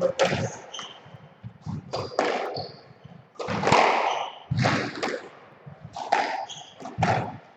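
Squash rally: the ball struck hard by rackets and smacking off the court walls, a sharp crack every second or so, with short high squeaks of shoes on the wooden floor between the shots.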